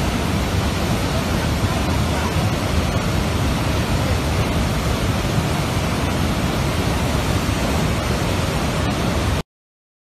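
Loud, steady roar of a tropical downpour and rushing runoff water on a mountain road, cutting off suddenly near the end.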